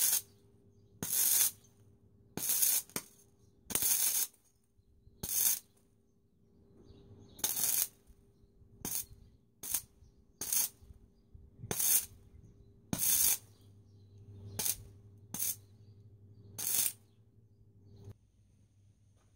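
MIG welder stitch-welding a rust-repair patch on a Land Rover's steel body: about fifteen short crackling bursts of arc, each under half a second and roughly a second apart, over a low steady hum that stops near the end.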